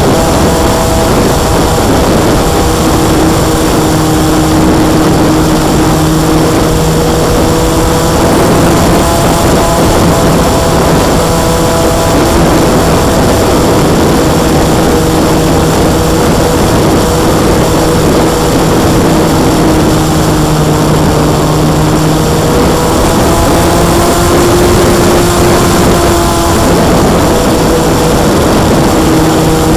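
Scratch-built radio-controlled airplane's motor and propeller running steadily, heard from on board the plane in flight, with a constant rushing noise underneath. The drone holds a steady pitch that wavers slightly up and down.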